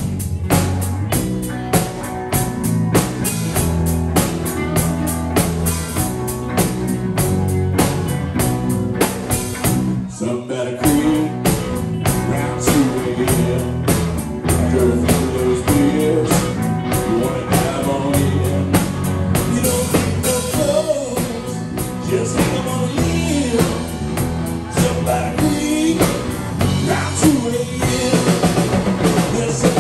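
Live rock band playing: drum kit, electric guitars, bass and keyboard over a steady beat. The band briefly drops away about ten seconds in, then comes back with a wavering melody over the beat.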